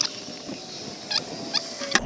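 A few sharp, irregular clicks and knocks of hand tools on metal, from work undoing the boot lid of a car.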